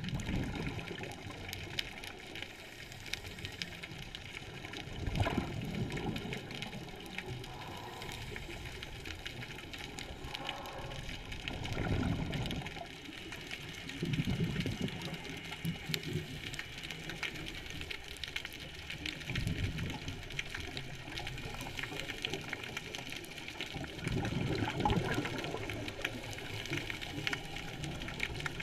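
Scuba regulator breathing heard underwater: a gushing burst of exhaled bubbles every five seconds or so, over a steady background hiss.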